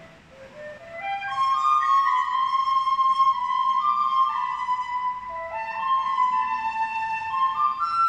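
A slow melody of held, pure-toned notes stepping up and down in pitch, faint at first and fuller from about a second in.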